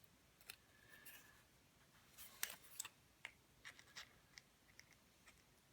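Faint, scattered clicks and scrapes of a pair of pliers gripping and working a small piece of sheet steel, with a short faint high squeak about a second in.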